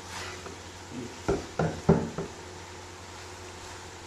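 Wooden spatula knocking against the side of an aluminium pot while stirring macaroni: four quick knocks about a third of a second apart around the middle, over a faint steady low hum.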